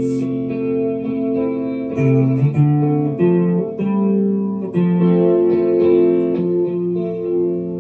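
Ibanez Gio electric guitar played through a Fender Mustang GTX100 amp modelling a '65 Twin, with sine chorus and tape-echo delay: clean chords and single notes ringing on, the lower notes changing about once a second.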